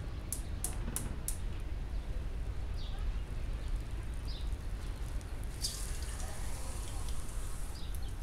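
Broccoli and green beans in a frying pan on the heat, giving scattered light crackles and pops over a low steady hum.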